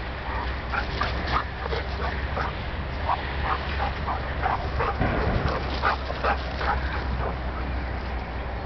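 A dog barking over and over in short, sharp barks, about three a second, with a short break in the middle.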